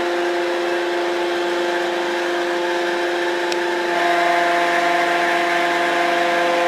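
Roadheader's hydraulic pump running under load as the cutting boom is moved, a steady whine with several held tones that gets louder about four seconds in.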